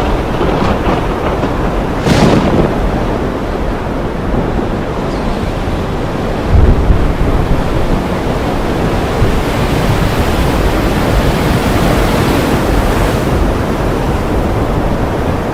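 Heavy rain pouring steadily, a dense hiss with a deep rumble under it. A short sharp burst of noise comes about two seconds in, and a brief low boom about six and a half seconds in.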